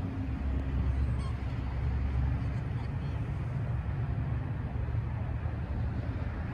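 Steady low rumble of vehicle engines and road traffic, with no distinct events.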